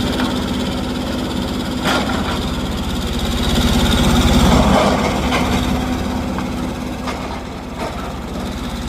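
Mini excavator's diesel engine running with a steady pulsing note, growing louder around the middle and then easing back, with a few short metallic clanks.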